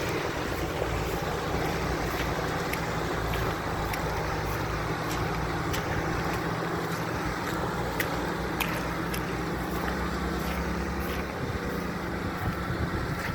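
A Nissan Terrano WD21 driving off-road, its engine running steadily under a constant rumble of tyre and road noise. Scattered sharp clicks and knocks break through it.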